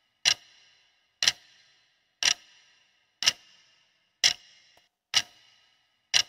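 Countdown-timer ticking sound effect: sharp clock-like ticks about once a second, seven in all, each with a brief ringing tail.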